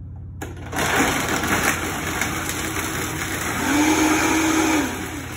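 Countertop blender switched on about half a second in, running at full power as it blends ice with orange juice and yogurt into a slushy. A humming tone comes up in the motor's sound over the last couple of seconds, and it stops near the end.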